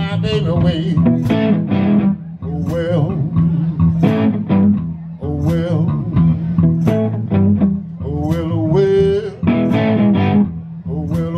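Live electric blues: an electric guitar plays a lead line of picked and bent notes, over a steady electric bass line. About nine seconds in, a bent note rises in pitch.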